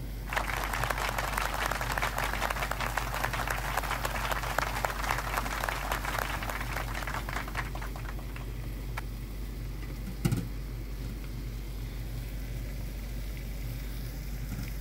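Water with orange peels boiling hard in a small saucepan on the stove: a dense crackling and popping of bubbles that eases to a quieter steady bubbling after about seven seconds. A single knock about ten seconds in.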